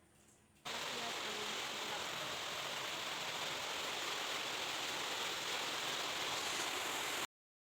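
Steady rush of water, an even hiss that starts abruptly under a second in and cuts off abruptly near the end.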